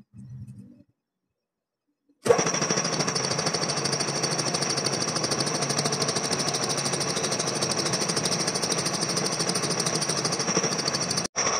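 Vertical slotting machine's cutter stroking rapidly up and down, cutting teeth into a steel crown-wheel blank: a steady, fast, rhythmic clatter with a bright metallic ring that starts about two seconds in, after near silence, and breaks off for an instant near the end.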